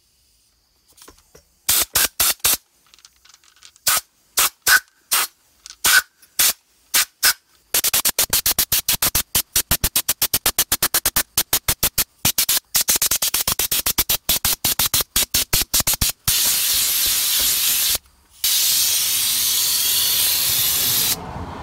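Compressed-air undercoating spray gun spraying rust proofer onto a car wheel. It hisses first in scattered short trigger-pulled bursts, then in a rapid string of quick pulses, and ends in two long continuous sprays with a short break between them.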